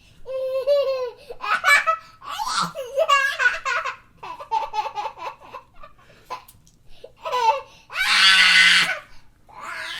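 Laughter in a string of bursts, with one louder, breathy burst near the end.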